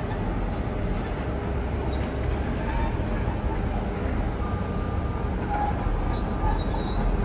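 Steady rumble of heavy diesel demolition machinery, including an articulated dump truck, with a few faint, brief high squeaks.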